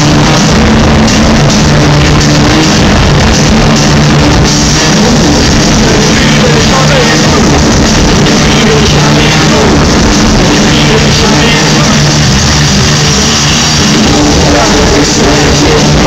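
A rock band playing live in an arena, drums, bass and guitars, heard from among the crowd and recorded very loud, near full scale, without a break.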